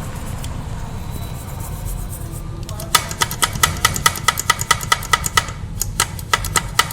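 Quick run of sharp metal-on-metal taps, about five a second, each ringing with a bell-like tone, starting about three seconds in, pausing briefly, then resuming; a low steady rumble underneath.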